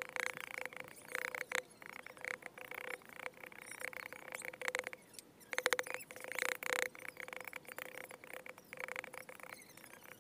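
A large knife shaving curls off a piece of jackfruit wood, in quick repeated scraping strokes that come in irregular bursts, loudest a little past halfway.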